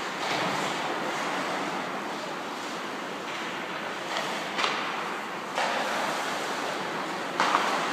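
Steady rushing noise, typical of wind buffeting the camera microphone outdoors, broken by a few short sharp knocks past the middle and a quick double knock near the end.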